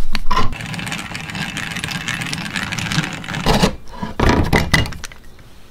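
Power drill spinning a 22 mm hole saw as it cuts into laminated spruce: a steady drilling noise, with two louder spells about three and a half and four and a half seconds in before it dies away.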